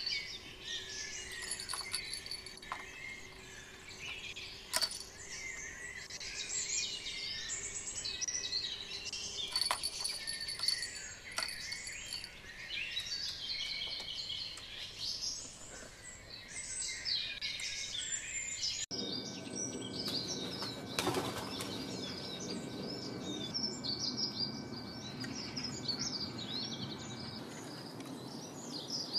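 Songbirds singing and chirping in a dense, overlapping chorus, with a few sharp clicks in the first half. About two-thirds of the way through, the sound cuts abruptly to a different birdsong chorus.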